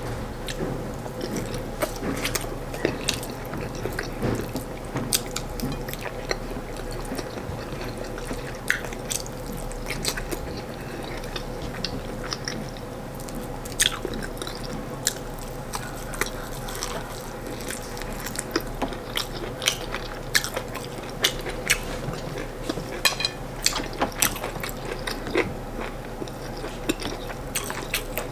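Close-miked chewing and mouth sounds of a person eating corn fufu and stewed chicken, with many small sharp clicks and smacks throughout, over a faint steady hum.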